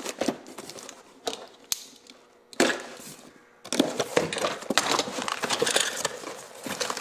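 A cardboard box being torn open by hand: the flaps crack and tear in scattered snaps, one sharp rip about two and a half seconds in. From about halfway on comes a denser run of crinkly rustling as the cardboard and plastic-bagged parts inside are handled.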